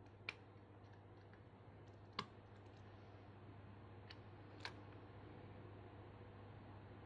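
Short sharp metallic clicks of a snake rake and tension wrench working the pins of a clear acrylic practice lock as it is raked open: two clear clicks about two seconds apart, then two fainter ones a couple of seconds later, over a faint steady hum.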